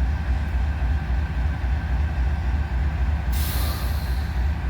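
Diesel locomotives idling with a steady low rumble. About three seconds in, a loud burst of air hiss from the air brakes starts.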